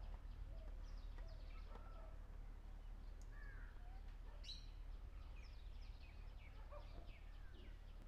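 Birds chirping: many short, falling calls scattered throughout, with a sharper call about four and a half seconds in, over a low steady rumble.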